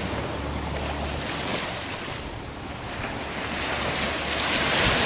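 Gulf surf washing up the beach, with wind buffeting the microphone. The wash swells louder toward the end.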